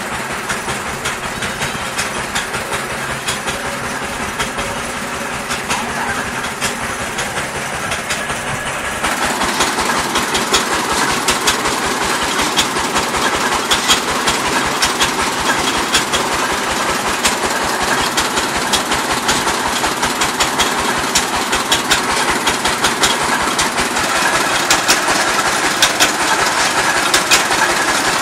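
Engine of a water-well drilling rig running steadily with a fast rattling knock; about nine seconds in it grows louder and rougher.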